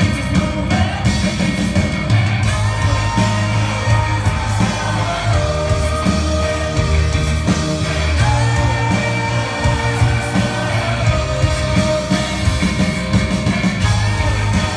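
Folk-rock band playing live with singing, heard from within the audience, with a heavy bass line under the band.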